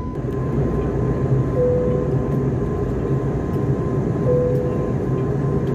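Steady drone of a jet airliner's cabin in flight: engine and airflow noise heard from a window seat, with two brief faint tones about two and a half seconds apart.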